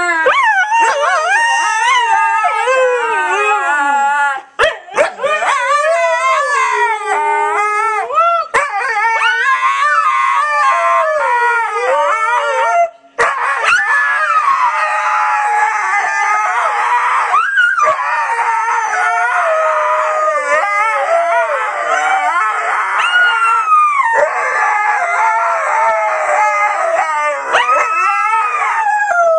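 Several Siberian huskies howling together, their long wavering howls overlapping. The howling breaks off briefly a few times, sharply at about 13 seconds in.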